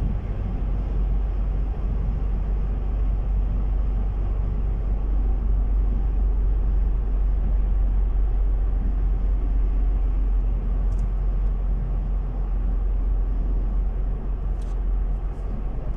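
Steady rumble of a car being driven, engine and road noise heard from inside the cabin.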